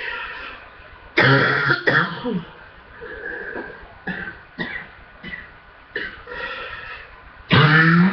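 A person coughing hard from chest congestion: a loud, harsh cough about a second in and another near the end, with shorter coughs and throat clearing between.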